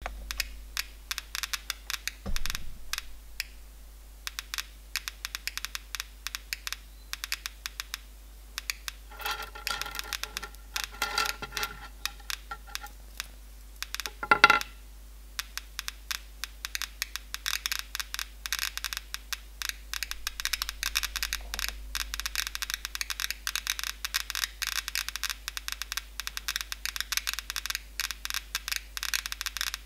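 Geiger counter clicking, a few irregular clicks a second at background level. About halfway through, thin tungsten welding electrodes clatter and clink against the counter's metal case, and the clicks then come much faster, a dense crackle from the radioactive thorium in the electrodes.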